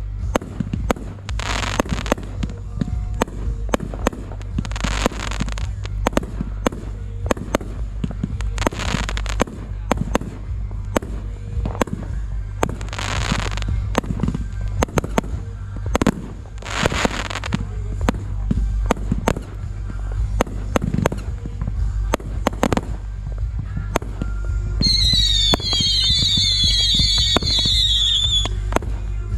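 Fireworks going off: a steady stream of sharp bangs and pops with several crackling, hissing bursts. Near the end a warbling high whistle runs for a few seconds.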